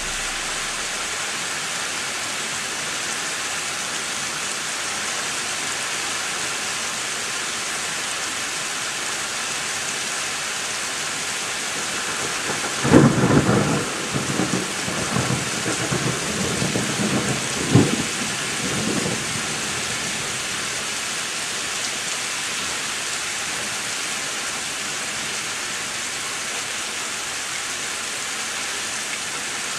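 Steady heavy rain, with a peal of thunder about halfway through that rumbles for several seconds and has a sharper crack near its end.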